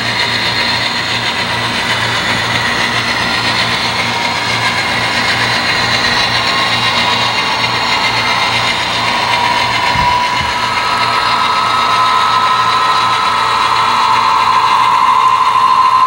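HO scale model trains running on the track: a steady mechanical whine and rumble from the locomotives and their wheels on the rails. A second higher whine joins about two-thirds of the way in, and the sound grows louder toward the end as a second train runs along the lower track.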